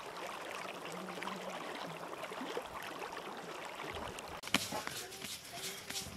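A small stream babbling and trickling over grassy banks. About four seconds in it cuts off, and soft pats and taps of hands working a ball of bread dough follow.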